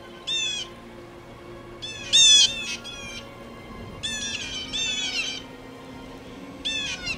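Bird calling in four short series of harsh squawks, each series three or four quick notes, the loudest series a little over two seconds in.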